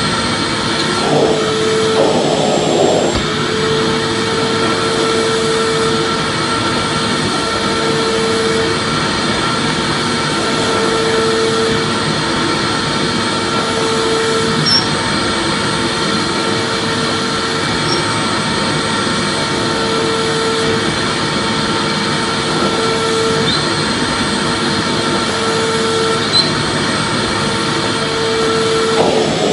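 Vacuum cleaner running continuously: a steady rush of air with a constant motor whine, and a lower hum that swells and fades every two to three seconds.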